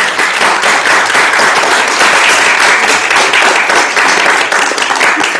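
Audience applauding, a dense, steady round of many hands clapping.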